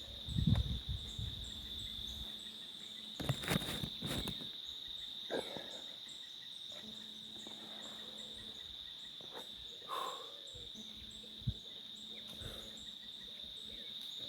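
A steady, high-pitched insect chorus droning on one pitch. Low rumbling knocks on the microphone come in the first two seconds, and a few sharp clicks come about three to four seconds in.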